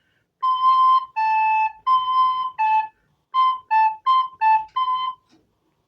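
Recorder playing a simple two-note exercise: nine notes alternating between C and A, ending on C. The first notes are held longer and the later ones are shorter.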